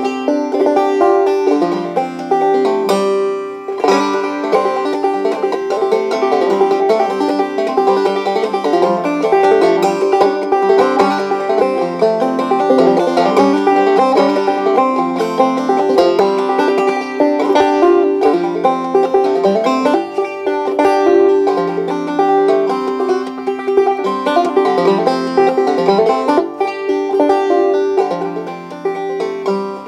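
Solo five-string banjo, a 1975 Stelling Starflower, playing an old-time tune in modal gDGCD tuning, with steady plucked notes over a ringing drone.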